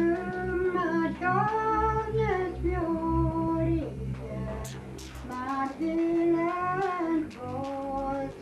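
Music: a high voice singing long, held notes over steady low accompaniment.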